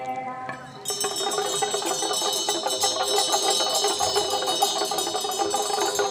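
Chanting voices fade out in the first second. Then a cluster of small bells is shaken and rung rapidly, a shimmering jangle that holds steady for about five seconds before stopping.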